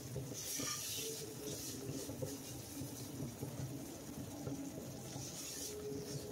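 Plastic spatula stirring and scraping semolina around a nonstick pot as it roasts in oil on a low flame: soft, continuous scraping and rustling.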